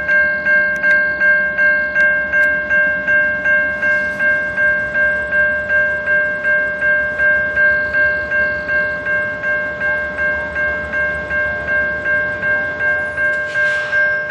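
Railway level-crossing warning bell ringing at an even, rapid beat of about three strikes a second, with the low rumble of an approaching freight train beneath.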